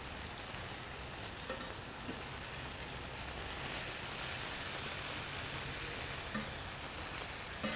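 Chopped pancetta and a slice of sweet onion sizzling steadily on a hot Mojoe steel griddle, with a metal spatula scraping and tapping across the steel a few times.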